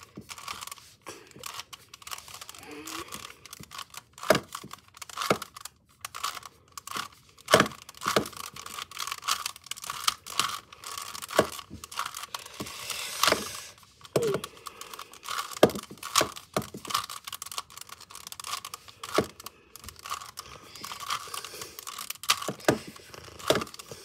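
Plastic Rubik's cube being turned by hand: an irregular run of clicks and rattles as its layers are twisted, in small bursts with short pauses.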